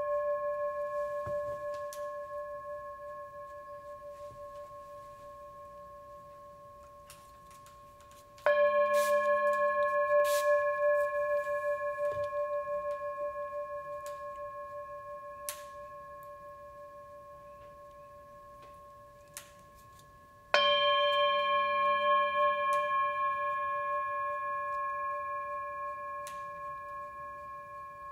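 Tibetan singing bowl held on the palm and struck with a wooden mallet, ringing with a slow pulsing wobble and fading away over about ten seconds. It is already ringing and is struck again about eight seconds in and about twenty seconds in, each strike bringing the ring back to full strength.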